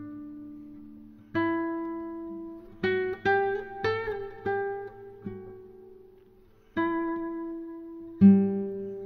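Background music: a solo acoustic guitar playing plucked notes and chords that ring out and fade. A quicker run of picked notes comes a few seconds in, then slower single strikes.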